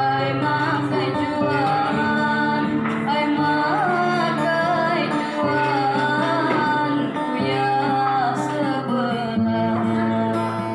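A woman singing a slow, ornamented melody of a Batanghari Sembilan regional song over sustained instrumental accompaniment.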